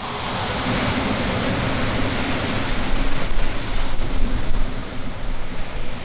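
Ocean surf washing onto the beach, a steady rushing that swells louder over the first few seconds, with wind rumbling on the microphone.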